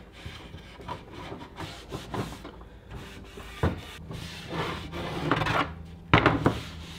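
A sock-covered hand rubbing water-based stain along a bare curved wooden mirror frame, with a few knocks as the frame is handled. The loudest knock comes about six seconds in.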